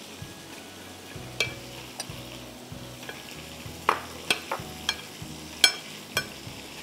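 Metal spoon clinking and scraping against a ceramic plate while stirring a spice marinade and tossing onion pieces in it: a series of sharp, irregular clinks, the loudest a little before the end, over a faint steady hiss.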